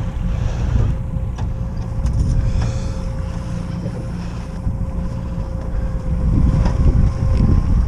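Wind buffeting the microphone in a low rumble, with a faint steady hum under it and a few light clicks.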